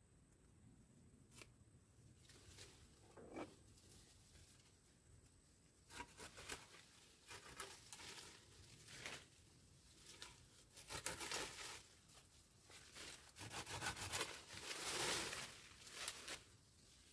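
Leafy branches rustling and crackling in bursts as a tree is handled and pruned, with a few sharp clicks among them. The bursts start about six seconds in, and the longest and loudest comes near the end.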